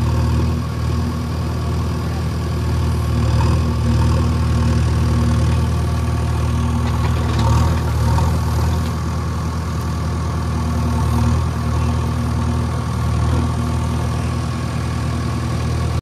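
JCB 3DX backhoe loader's diesel engine running steadily, heard from inside the operator's cab as the backhoe works.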